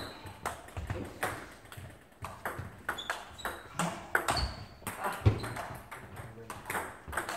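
Table tennis rally: the ball clicks sharply back and forth off the bats and table, a quick, irregular run of clicks with short high pings from the ball. A couple of dull thuds come about halfway through.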